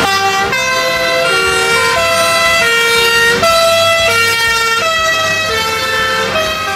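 Electronic siren from a toy fire truck's sound chip: a loud run of short held tones that step up and down in pitch every fraction of a second.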